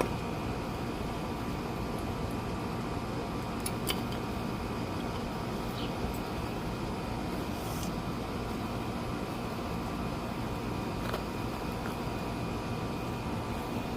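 Steady mechanical background hum, like a fan, with a few faint clicks about four, six, eight and eleven seconds in.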